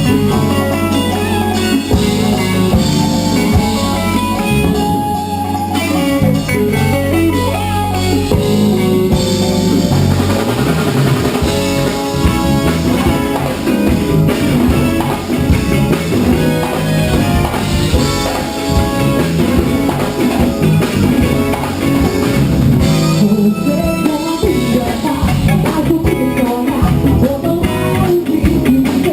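A band playing during a sound check: guitar over a drum kit, the playing getting busier about ten seconds in.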